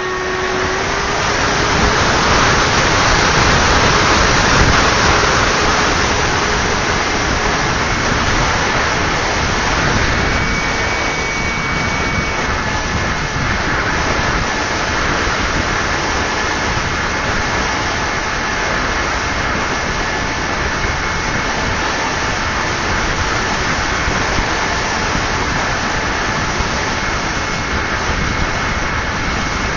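Multiplex Twister RC model plane in flight: a steady rushing hiss of air noise with the thin whine of its motor and propeller, which shifts pitch in steps a few times as the throttle changes.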